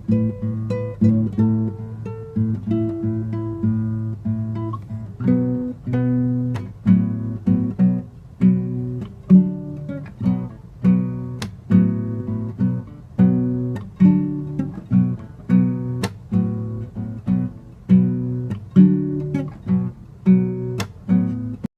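Background music: an acoustic guitar playing a piece of plucked notes and chords in a steady rhythm, growing fuller about five seconds in.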